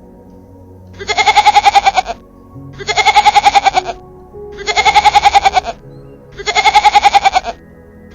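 An animal call repeated four times, about every 1.8 seconds. Each call lasts about a second and has a fast quavering pulse, over quieter background music.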